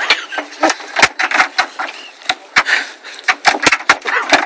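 Rapid, irregular knocks and thuds of shoes stomping on the steel body panels of a 1990 Mercedes-Benz 560 SEL, with a person's full weight on it. The sheet metal holds without denting.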